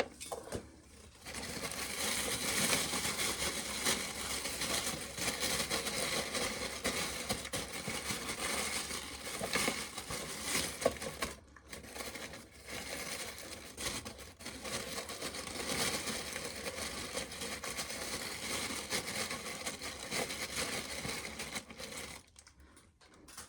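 Corn sheller stripping kernels from dry ears of corn, a steady dry crunching rattle. It starts about a second in, breaks off briefly twice near the middle, and stops shortly before the end.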